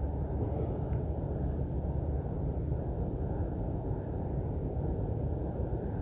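Steady background noise: a low rumble with a faint, high-pitched whine held above it.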